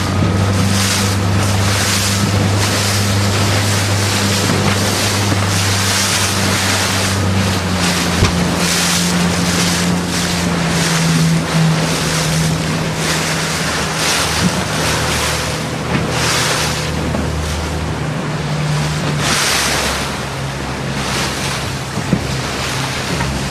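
Wind buffeting the microphone and water rushing and splashing past a motorboat's hull, with the boat's engine droning low underneath. The engine's pitch drops about eight seconds in and again later.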